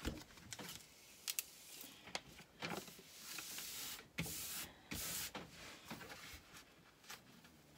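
Rustling and crinkling of a diamond-painting canvas and its printed cover sheet as hands press and sweep it flat. There are a few short taps and two longer swishes in the middle.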